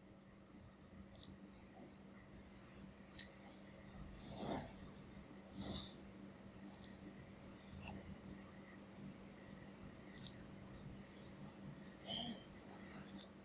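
Faint scattered clicks and small handling noises over a low steady hum.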